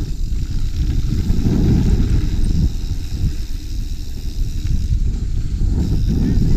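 Mountain bike riding on a dirt trail as picked up by a GoPro's microphone: a loud, steady low rumble of wind buffeting and tyre and trail noise, with no brake squeal.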